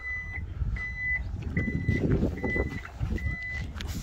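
The Toyota Vellfire's power tailgate warning buzzer beeps steadily while the tailgate opens, about once every 0.8 seconds. It stops a little before the end, as the tailgate reaches fully open. A low rumble runs underneath.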